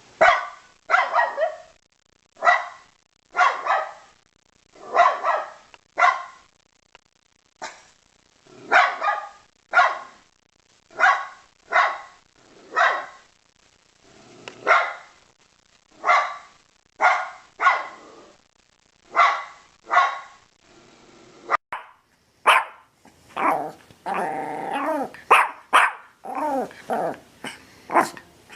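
Dog barking loudly again and again, roughly one bark a second, sometimes two in quick succession. About twenty-two seconds in, a different, fuller-sounding recording takes over with denser barking.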